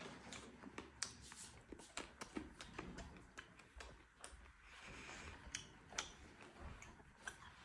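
Near silence: quiet room tone with faint, scattered small clicks and taps.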